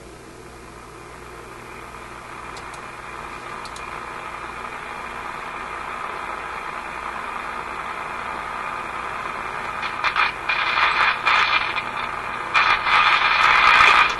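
RCA A25 vacuum-tube radio warming up after switch-on: hiss from its speaker grows steadily louder as the tubes heat. About ten seconds in it breaks into irregular, louder crackling static.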